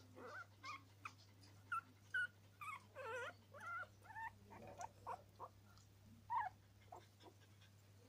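Young Norwich terrier puppies whimpering and squeaking: a dozen or so short, high calls, some of them wavering, that stop about seven seconds in.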